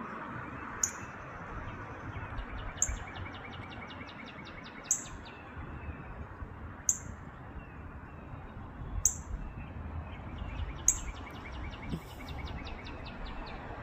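Northern cardinal giving sharp, high chip notes, each falling in pitch, about every two seconds. Twice a quicker run of short ticking bird notes joins in, over a steady low background rumble.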